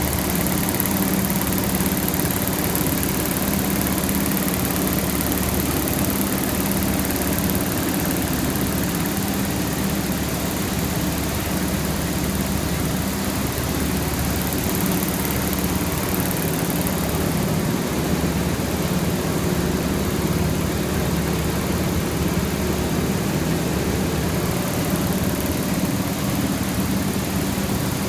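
Yitai centre-line zipper needle looms running steadily: an even machine noise with a constant low hum.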